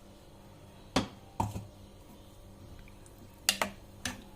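A spoon clinking against a cooking pot while masala paste is added to the cooked vegetables: a few sharp knocks, two about a second apart early on, then a close pair and one more about three and a half to four seconds in.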